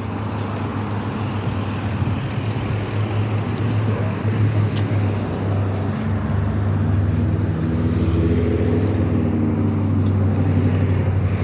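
Car running, heard from inside the cabin: a steady low engine and road hum that grows a little louder through the stretch.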